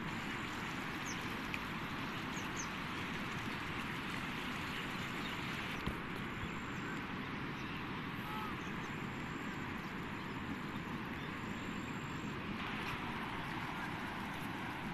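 Muddy floodwater rushing steadily, a constant even rushing noise, with a single short knock about six seconds in.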